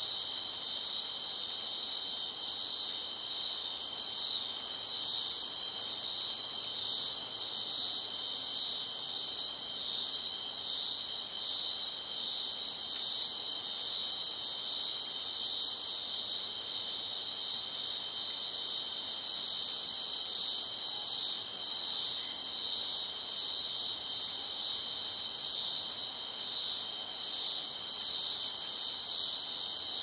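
Crickets chirping at night in a dense, steady chorus: a continuous high-pitched trill with no pauses.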